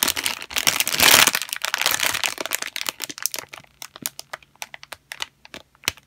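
Clear plastic packaging bag crinkling and crackling as it is handled. The crinkling is densest and loudest about a second in, then thins to scattered crackles.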